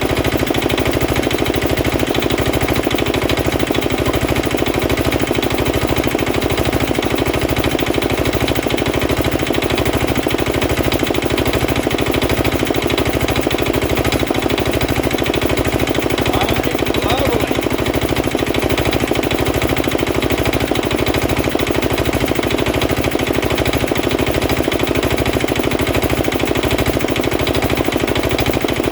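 Petter AA1 single-cylinder air-cooled diesel engine running steadily, belt-driving an air compressor, with an even, rapid beat that holds the same all through.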